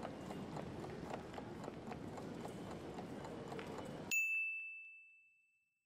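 Countdown timer ticking over a soft background noise, then a single bright bell-like ding about four seconds in that rings out and fades, signalling that time is up.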